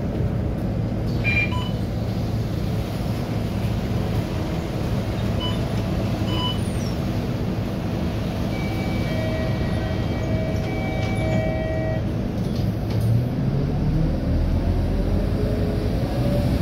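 Scania K230UB bus's diesel engine idling, heard from inside the passenger cabin, with a few short electronic beeps and then a repeated beeping tone for a few seconds in the middle. About thirteen seconds in, the engine revs up with rising pitch as the bus pulls away.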